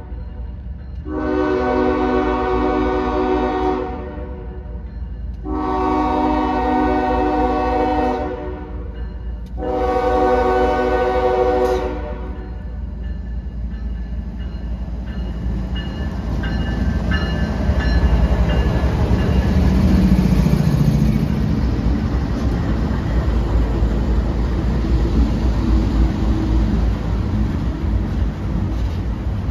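Diesel locomotive horn sounding three long blasts, a little under three seconds each with short gaps between. The low rumble of the slow-moving loaded coal train and its locomotive engines follows, growing to its loudest about twenty seconds in.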